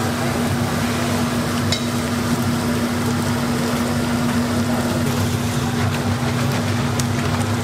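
Battered fritters sizzling and bubbling in a large pan of deep-frying oil, a steady hiss with a steady low hum underneath.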